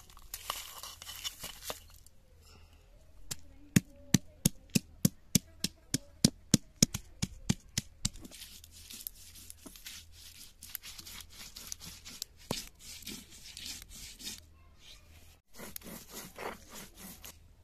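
A round hand stone pounding whole spices, dried red chillies and garlic on a flat stone grinding slab: a quick, even run of sharp stone-on-stone knocks, about four a second for several seconds. Then a gritty scraping as the stone is rubbed back and forth, grinding them to a wet masala paste.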